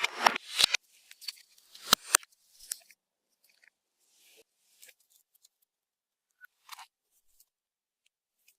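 Slime being pressed and kneaded by hand with makeup mixed in, giving crisp crackles and clicks, thickest in the first three seconds and then only a few faint ones.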